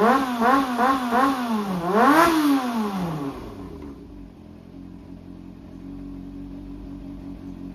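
Yamaha XJR400 inline four-cylinder engine being blipped: four quick revs in a row, then one bigger rev, then it drops back to a steady idle about three and a half seconds in. The seller presents it as running strongly with no abnormal noise.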